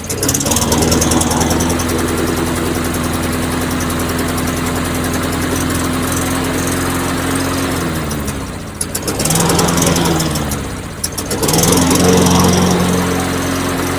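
Tecumseh small engine on a push mower running unevenly. Its speed sags and picks back up twice near the end. It is kept going on fuel squirted from a bottle into the carburetor to clear it out.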